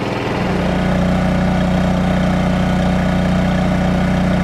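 Cummins Onan RV generator running steadily with a low, even hum. The sound changes about a third of a second in, getting louder and steadier.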